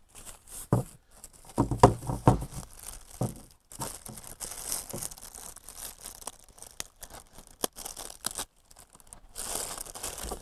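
Plastic bag and paper packaging crinkling and rustling as a rifle scope is unwrapped by hand, with a few louder knocks in the first couple of seconds.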